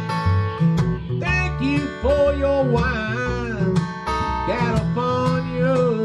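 Acoustic guitar strumming chords over low washtub bass notes. About a second in, a lead melody with bent, wavering notes comes in over them.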